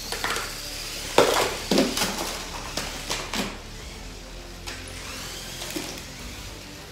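Lego combat robots' spinning weapons whirring up in pitch and clattering into each other: a quick string of sharp plastic impacts between about one and three and a half seconds in, the loudest about a second in.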